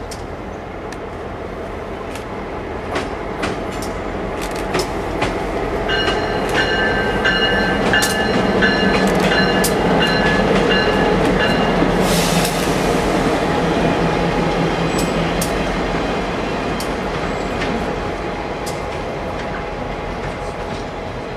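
Union Pacific diesel locomotives pass slowly, their engine rumble rising to a peak midway and then fading, with wheels clicking over rail joints. A locomotive bell rings steadily for about six seconds in the middle, and a brief hiss follows it.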